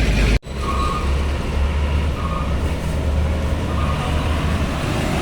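Heavy vehicle engine running with a steady low rumble, with three faint short beeps about a second and a half apart.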